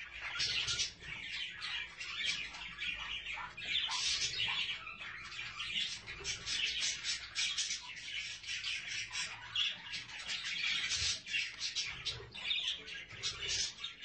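Budgerigars chattering: a dense, unbroken stream of quick chirps and warbles.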